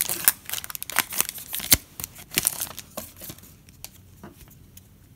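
Foil trading-card pack wrapper crinkling and crackling in the hands as it is handled and torn open, the rustle thinning out to a few faint ticks after about three seconds.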